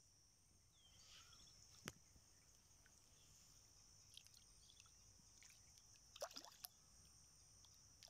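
Near silence: a faint steady high hiss, with a sharp click about two seconds in and a few small clicks and light water sounds as a stick is worked through shallow muddy water.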